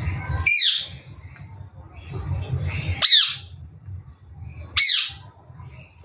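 Indian ringneck parakeet giving three loud, harsh squawks a couple of seconds apart, each call falling in pitch, over a low background rumble.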